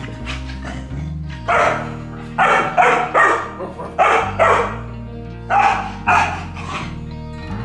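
Golden retriever puppy barking in play: about nine short barks, some in quick pairs, over steady background music.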